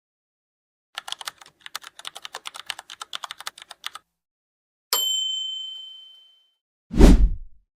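A run of separate sound effects. First comes about three seconds of rapid computer-keyboard typing. Then a single bell ding rings and fades over about a second and a half, and near the end there is a short, loud, low burst of noise, the loudest sound.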